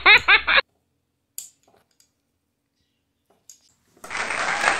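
A voice for the first half second, then near silence with a couple of faint taps, then about four seconds in a loud, steady applause-like noise starts abruptly.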